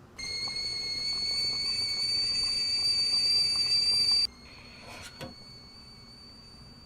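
Kettle whistling: a steady high whistle that grows slightly louder, then cuts off suddenly about four seconds in, leaving a faint whistle, with a couple of light clicks a second later.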